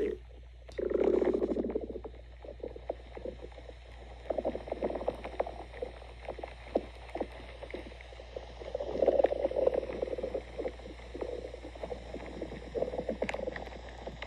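Human stomach growling and gurgling: a short rumble about a second in, then a run of small pops and gurgles, with longer rumbles about two thirds of the way through and again near the end.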